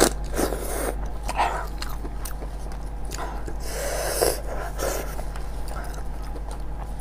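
Close-miked eating of a braised sheep's head: wet slurps and sucks of meat off the fingers, lip smacks and chewing, with squelching as gloved hands pull the saucy skull apart. The loudest slurp comes a little past the middle.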